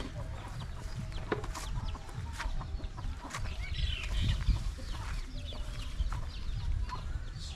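Chickens clucking and calling in short scattered bursts over a low rumble.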